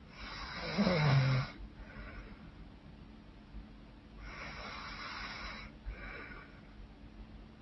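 A woman snoring loudly in her sleep: one rough snore about a second in that drops in pitch, then slower, noisy breaths, with a longer one about halfway through.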